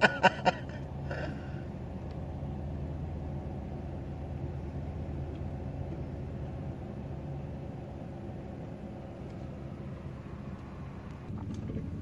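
2011 Jeep Liberty's V6 engine idling steadily, heard from inside the cab. It opens with a short burst of loud, rapid pulses, and a few faint clicks come near the end.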